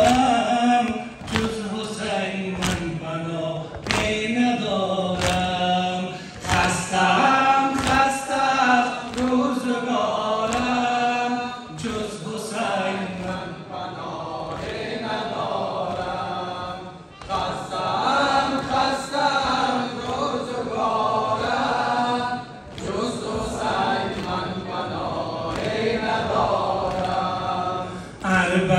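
A chorus of men's voices chanting a Persian-language Muharram nauha, the Shia lament for Imam Hussein, in long sung phrases. Sharp beats recur through the singing, the chest-beating of sina-zani keeping time.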